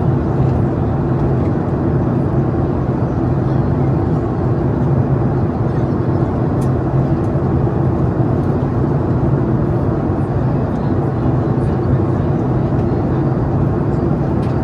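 Steady jet engine and airflow noise inside the cabin of a Boeing 737 MAX 8, a constant low hum under an even rush.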